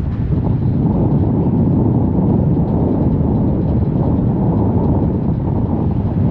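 Steady low rumble of wind buffeting the microphone on a harbour ferry's open deck, mixed with the ferry running under way over choppy water.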